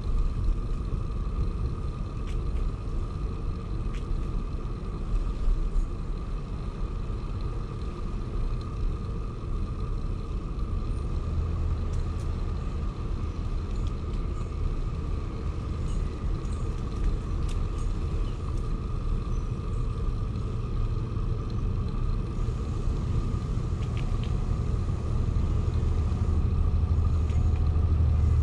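Steady low rumble of wind and tyre noise from a bicycle on the move, with a thin steady whine and a few light clicks. The low rumble grows louder over the last few seconds.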